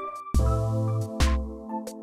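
Electronic background music: held synth chords over a low bass line, with a regular drum beat.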